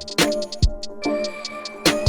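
A programmed drum-machine beat playing back from Maschine: quick, even hi-hat ticks over synth chords, with a sharp snare-like hit about a quarter second in and another near the end. The deep bass is dropped out for most of the stretch.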